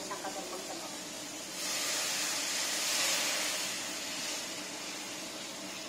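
Water poured from a stainless steel pot into a hot wok of frying fish, hissing and splashing for about two and a half seconds from roughly a second and a half in.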